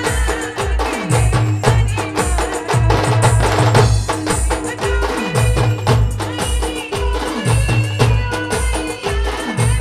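Timli folk music played by a live village band. Booming drum hits, many dropping in pitch, keep a steady beat of about two a second under a high melody line.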